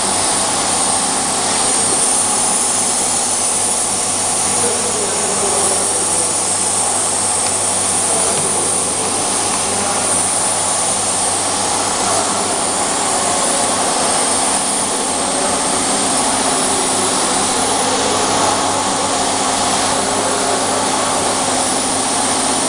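Steady, loud workshop machine noise: a continuous whir with a low hum underneath, unchanging throughout, around a running semi-automatic flat labeling machine.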